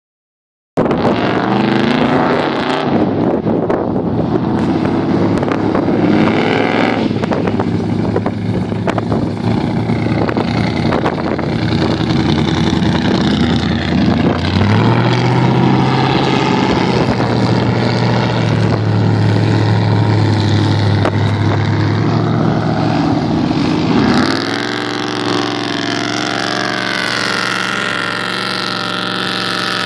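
Vehicle engines running and revving, the pitch rising and holding at times, changing abruptly about 24 seconds in to a steadier engine sound.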